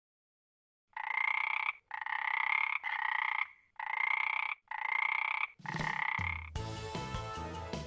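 A frog croaking six times in a row, each croak nearly a second long, after a second of silence. Music comes in near the end.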